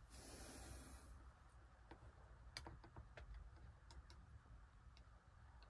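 Near silence with a soft hiss in the first second, then faint, scattered ticks and clicks of a pen on a plastic plant label as the label is written and handled.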